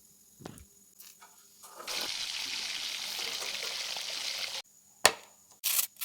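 Water running or pouring for about three seconds, starting and stopping abruptly, followed by a single sharp knock and a couple of short rustling bursts.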